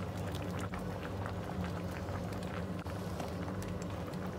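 Tomato-based chicken stew sauce simmering in a pan, bubbling with many small irregular pops, over a steady low hum.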